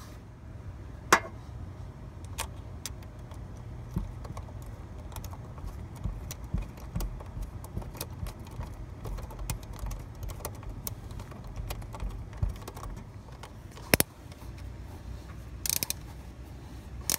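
Hand ratchet and socket extension clicking and rattling as the MAP sensor's retaining bolt is turned in, a run of small irregular metal clicks with a few sharper clicks, one about a second in and a short cluster near the end.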